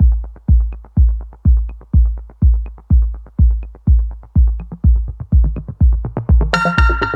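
Background electronic dance music: a steady kick drum about two beats a second with light ticks over it, and brighter synth chords coming in near the end.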